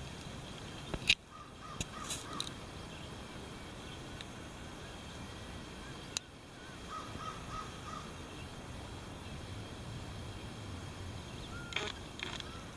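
A bird calling in two runs of four or five short, evenly spaced calls, about a second in and again about seven seconds in, with another call near the end. A sharp click about a second in is the loudest sound, with another about six seconds in, over a steady background hiss.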